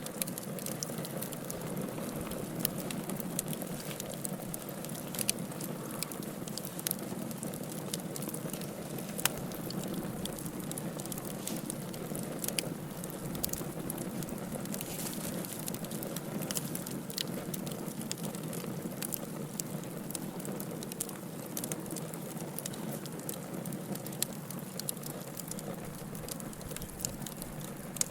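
Fire burning in a fireplace: a steady hiss of flames with frequent short, sharp crackles and pops.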